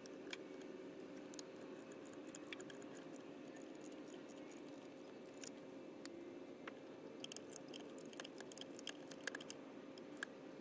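Faint scattered clicks and light taps of hand work on an engine's coil packs and their connectors, over a steady low hum.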